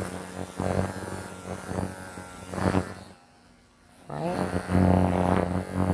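Electric dog-grooming clipper buzzing as it is run against the grain through a Yorkie mix's coat. It stops about three seconds in and starts again about a second later, spinning back up to speed.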